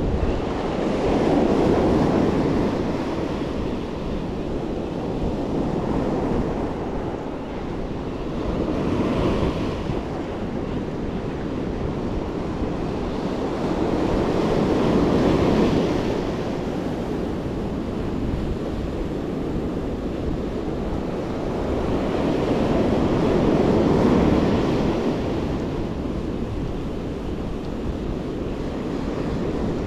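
Ocean surf breaking and washing up the beach, swelling and fading every several seconds.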